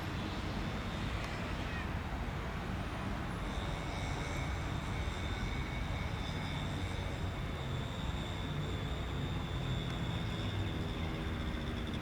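Cessna 550 Citation Bravo's twin Pratt & Whitney Canada PW530A turbofan engines running, a steady low rumble with a high turbine whine coming in about three and a half seconds in.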